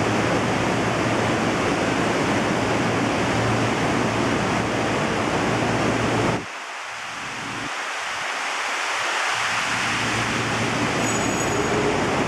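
Steady rushing of water circulating in a large aquarium tank, with a low hum underneath. The sound drops suddenly, mostly in the low end, about six seconds in, then builds back over a few seconds.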